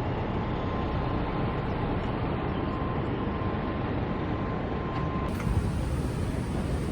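Steady rumbling running noise of a moving vehicle, with a faint high steady whine that stops about five seconds in.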